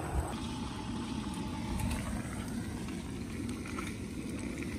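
Bacon frying in a pan on a camp stove: a steady sizzle over a low rushing rumble, with a few faint pops.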